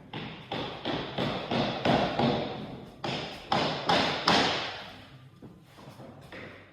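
A quick, irregular series of knocks and thuds, about three a second, each ringing briefly as in a hollow, echoing space.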